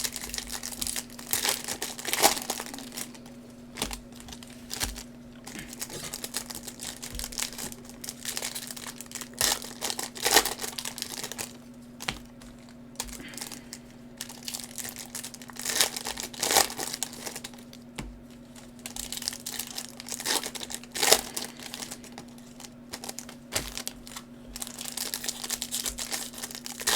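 Plastic wrapping crinkling and tearing in irregular bursts as a sealed box of trading cards is unwrapped and opened.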